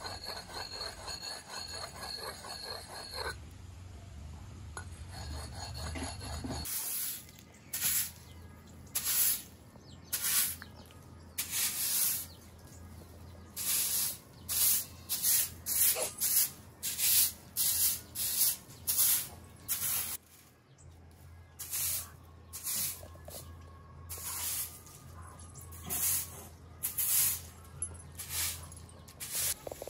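Grass broom sweeping a concrete floor in a run of short, brisk strokes, somewhat more than one a second, starting about seven seconds in.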